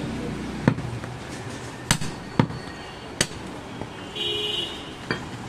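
Butcher's cleaver chopping goat leg meat and bone on a wooden stump chopping block: about five sharp, irregularly spaced chops. A brief high tone sounds about four seconds in.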